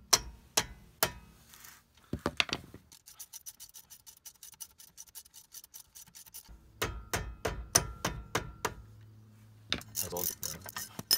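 A mallet knocks several times on the wrench to break the brake caliper's Torx bolts loose. From about three seconds in, a ratchet clicks quickly and evenly as a bolt is backed out, with louder clicks and knocks near the end.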